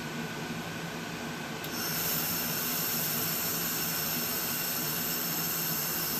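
A 2000-watt air-cooled handheld laser welder hums steadily. Nearly two seconds in, the laser fires on 18-gauge stainless steel with wire feed, and a steady bright hiss sets in and holds as the bead runs along the outside corner.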